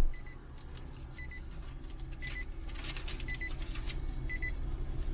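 A car's electronic warning chime beeping in short high double beeps, about one pair a second, over the low steady hum of the idling car, with brief paper rustling.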